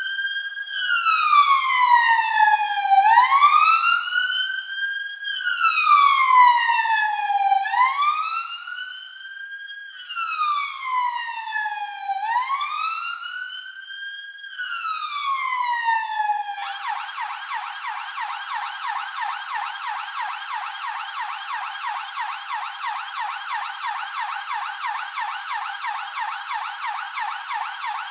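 British police car electronic siren, sounding a slow rising-and-falling wail for about the first sixteen seconds, then switching abruptly to a fast, rapidly repeating yelp.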